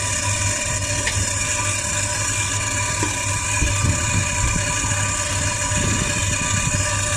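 Commercial freezer's refrigeration unit running: a steady electrical hum from the compressor and condenser fan motor, with a constant high hiss over it.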